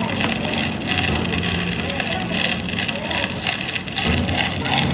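A vehicle engine running steadily amid roadside noise.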